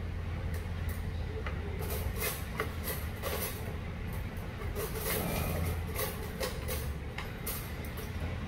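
Small side-dish plates and a steel cup clinking and being set down on a table, a scatter of light knocks over a steady low hum.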